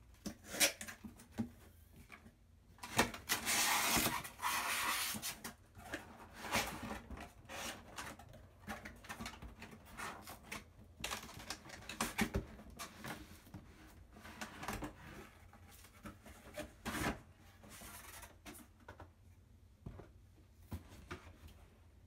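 Cardboard shipping box being opened and handled: flaps and panels scraping and rubbing, with knocks against the desk. The longest and loudest scrape comes about three seconds in. Later, the white retail box slides out against the cardboard.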